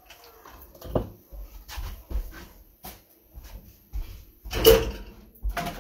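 Kitchen clatter: an irregular string of knocks and clinks as cookware and utensils are handled and put away, with the loudest clatter about three-quarters of the way through.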